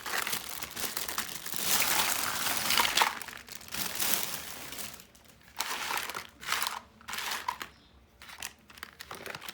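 Toy packaging being handled and crinkled, dense and continuous for the first few seconds, then in short separate bursts with brief pauses.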